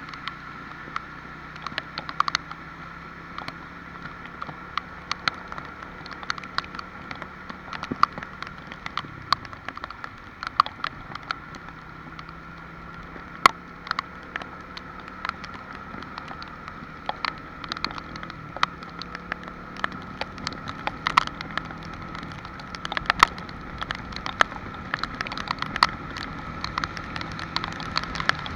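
Rain falling, with drops ticking sharply and irregularly close by over a steady patter.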